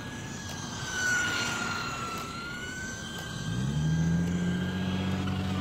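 Radio-controlled cars' motors whining as they drive on asphalt, the pitch dipping and then rising again as a car goes by. About three and a half seconds in, a lower steady hum swoops up and joins, and the sound gets louder.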